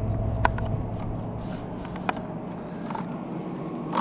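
A few light clicks and knocks of gear being handled, over a low steady hum.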